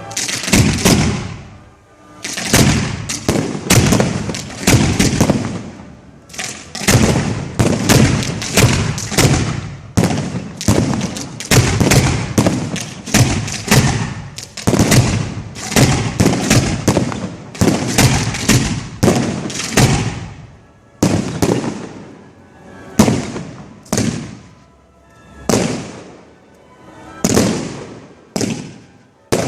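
Fireworks display heard close to the firing site: rapid volleys of shell launches and bursts, sharp bangs in quick succession. From about two-thirds of the way in, the volleys thin out to single loud bangs spaced a second or so apart.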